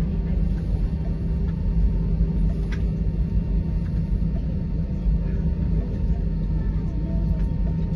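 Steady low rumble and hum of an Airbus A320's cabin on the ground after landing.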